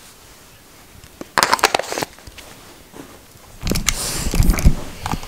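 Two short bursts of close-up rustling and clicking, about a second and a half in and again near four seconds. The second is heavier, with low thumps: hands brushing and handling close to the microphone.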